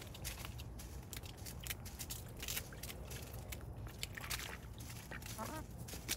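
Chickens pecking and tearing at hyacinth leaves in a tub, a run of irregular sharp clicks and crunches from their beaks. A brief call sounds near the end.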